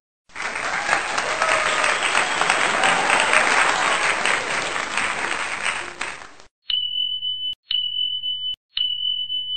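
Applause for about six seconds, fading near the end, then three short steady high beeps, each just under a second long and starting with a click: end-card like-and-subscribe button sounds.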